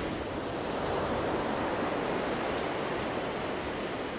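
Steady wash of surf breaking on a beach, an even rushing noise, with one faint tick about two and a half seconds in.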